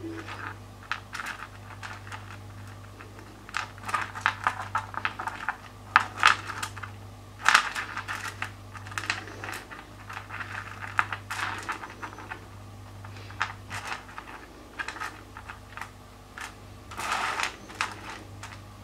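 Pieces of wet rough opal clicking and clacking against each other as they are picked up, turned and set down by hand. The clicks are irregular, with a longer scraping shuffle of stones near the end, over a steady low hum.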